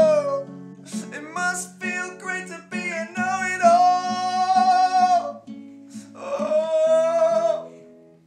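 A man singing long held notes over a strummed acoustic guitar. Near the end the voice stops and the guitar carries on, fading.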